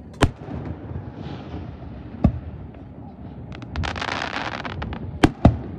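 Aerial fireworks shells bursting with sharp bangs: one near the start, one about two seconds in, and two in quick succession near the end. Between them, from about three and a half to five seconds, a dense crackle of many small pops from crackling stars.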